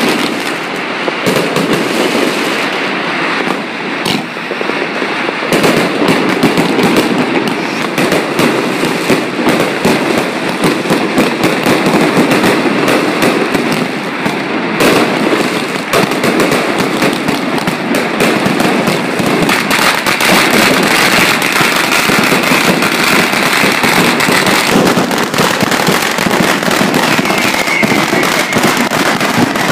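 Fireworks and firecrackers going off in a dense, unbroken barrage of rapid cracks and bangs.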